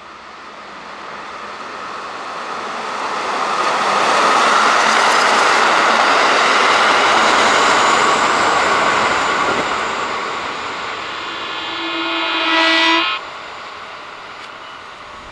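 Electric train passing, played backwards: its running noise swells, holds loud for several seconds and eases off. Near the end a train horn swells and cuts off suddenly.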